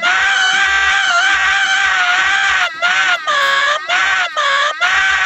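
A person screaming at a very high pitch: one long, wavering held scream, then a string of shorter screams from about two and a half seconds in.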